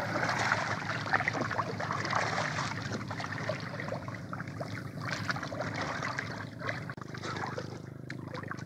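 Water splashing and trickling against the side of a small outrigger boat as a piece of plywood is stroked through it by hand as a paddle, in many small irregular splashes. A steady low hum runs underneath.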